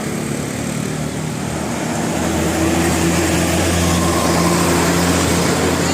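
A bus engine drones steadily over road noise and grows louder about two seconds in, as a large vehicle passing close by does.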